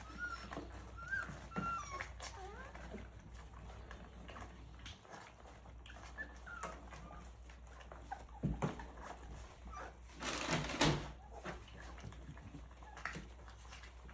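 Three-week-old Rottweiler puppies whimpering with small wavering squeaks, mostly in the first few seconds, over scattered faint clicking and smacking as they eat mush from a pan. A louder brief noisy burst comes about ten seconds in.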